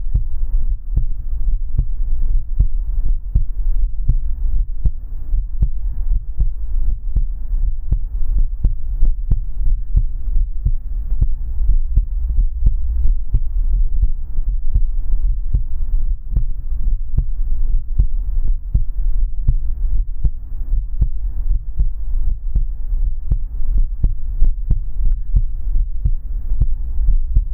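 Close-miked heartbeat: a steady run of deep, muffled thumps, over a low steady hum.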